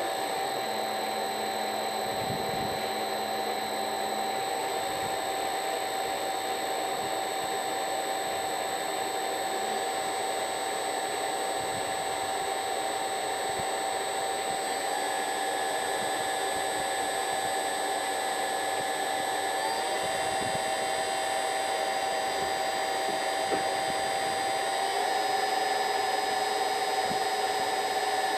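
Air-cooled CNC spindle motor running on a variable-frequency drive: a steady electric whine made of several tones. Its pitch steps up a few times as the drive frequency is raised from about 32 Hz to 70 Hz.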